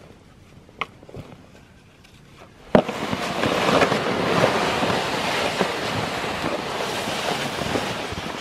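A few sharp knocks of split firewood dropped into a plastic sled. About three seconds in, the loaded plastic sled is yanked into motion and dragged over snow, a steady crackly scraping hiss.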